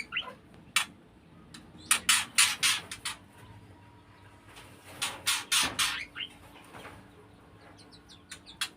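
Young white-rumped shamas (murai batu) giving harsh, hissing calls in quick runs of several notes, loudest about two and five seconds in.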